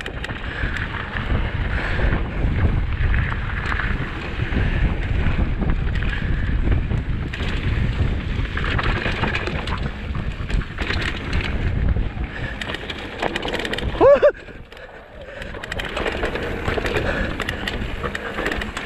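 Mountain bike rolling fast down a rocky dirt trail: wind buffeting the microphone over the rumble and rattle of tyres and frame on rough ground. About fourteen seconds in comes one short, loud pitched sound, and then the noise drops for a moment.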